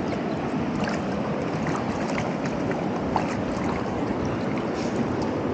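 Shallow stream running over rocks close by: a steady rush of water with small splashes and trickles.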